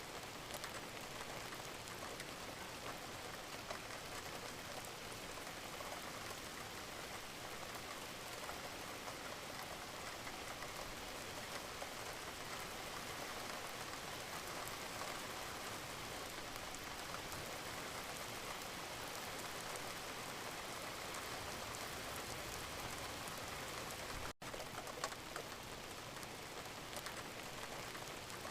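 Steady rain falling, a continuous hiss of many fine drop ticks, with a momentary dropout about three-quarters of the way through.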